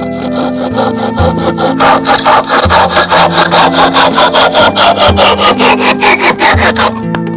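Handsaw cutting wood in quick, even back-and-forth strokes, about four or five a second; the sawing starts about two seconds in and stops near the end. Background music with held notes plays under it.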